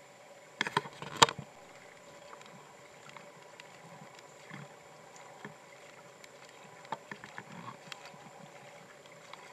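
Low, even outdoor background broken by a quick cluster of sharp clicks and knocks about a second in, the loudest sounds here, and a few softer ones around seven to eight seconds in.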